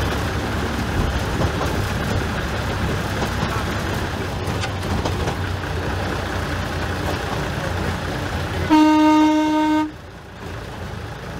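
Small narrow-gauge diesel locomotive running along the line, its engine and wheels on the rails making a steady rumble. Near the end it sounds its horn once: a single steady note lasting about a second.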